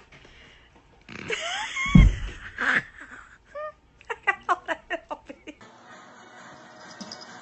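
A loud thump amid a noisy scuffle and a few high cries sliding up and down, then a person laughing in quick short bursts for about a second and a half.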